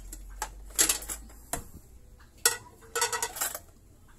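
Dishes knocking and clinking against each other as they are washed by hand: a few scattered sharp clinks, then a quick run of them about three seconds in.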